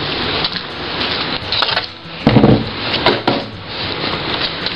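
Rustling and knocking of objects being handled and moved, with a louder low thump about two and a half seconds in.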